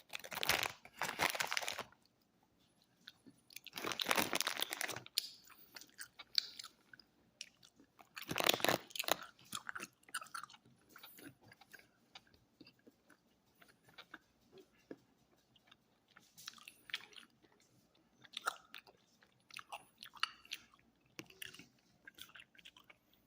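Close-up chewing of Life Saver gummy candies: soft, irregular mouth and chewing noises. Three louder, crunchy-sounding bursts of about a second each come in the first nine seconds.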